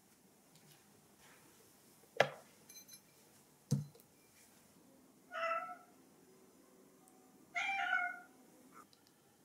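Domestic cat meowing twice, two short calls a couple of seconds apart. Before them come two sharp knocks, the first one the loudest sound.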